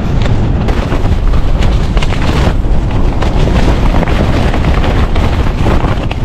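Strong wind buffeting the microphone: a loud, continuous, deep rumble of gusts with no let-up.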